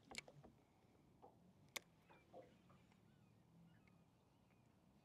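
Near silence: a few faint clicks, the sharpest a little under two seconds in, with faint distant bird chirps in the second half.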